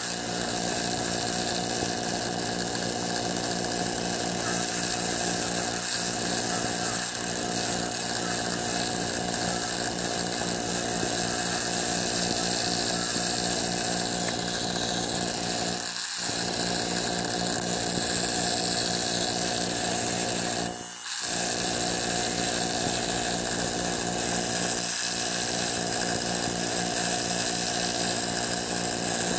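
Belt-driven bench buffer running steadily, its electric motor driving a spinning wire wheel and a buffing wheel. The sound briefly drops out a few times.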